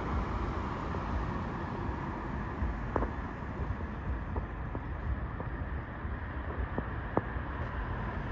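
Steady outdoor rumble with a few short, sharp knocks, the clearest about three seconds in and again near seven seconds.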